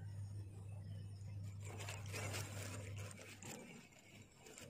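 Dry wheat bran poured and tapped out of a plastic tub into a bowl, a soft rustling hiss, over a steady low hum that stops about three and a half seconds in.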